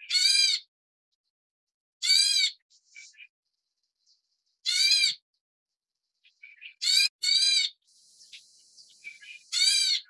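Black bulbuls calling: six harsh, rasping calls of about half a second each, two of them close together about seven seconds in, with softer short chips between.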